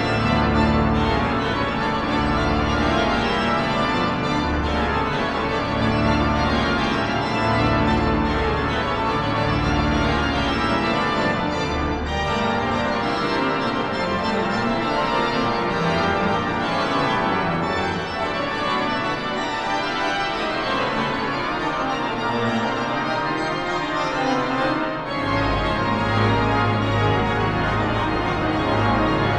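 Large church pipe organ playing dense, lively chords over pulsing bass notes. A low bass note enters and is held through the last few seconds.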